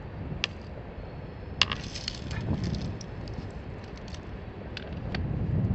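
Fiskars loppers' blades closing through a piece of board, splitting it for kindling. A sharp crack about a second and a half in is followed by a short run of splintering crackles, then scattered single clicks.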